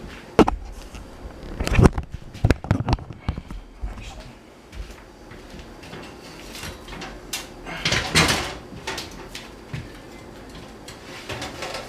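Box fan and its stand being handled and moved: a quick run of sharp knocks and clunks in the first few seconds, then softer scraping and rustling with another cluster of knocks about eight seconds in.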